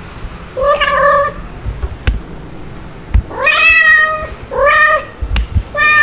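Domestic cat meowing four times: one short meow about a second in, then three more close together in the second half, the longest rising and then held. A few short dull knocks fall between the meows.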